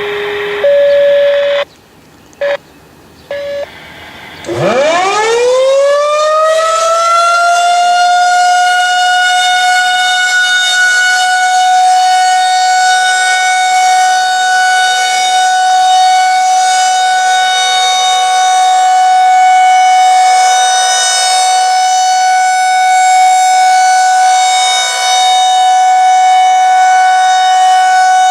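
Federal Signal 2001-130 rotating electromechanical siren winding up from a low growl to full pitch over a few seconds, then holding one steady loud tone for its monthly test. It is preceded by a few short steady tones.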